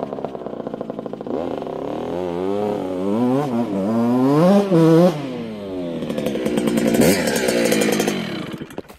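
Dirt bike engine revving, its pitch climbing and falling several times as it comes closer. It is loudest as the bike passes overhead near the end, then drops away quickly.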